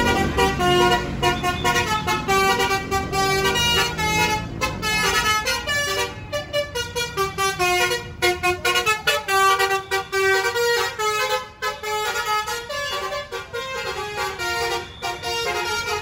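Tour buses' 'basuri' telolet horns playing tunes in quick stepped notes, several melodies overlapping, over the low rumble of a bus engine in the first few seconds.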